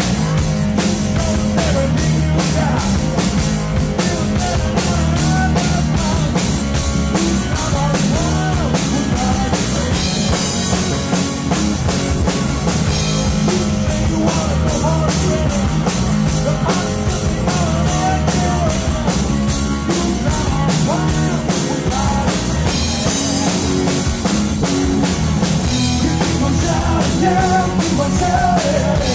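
Live rock band playing: electric guitar, electric bass and drum kit keeping a steady beat, with a man singing lead over it.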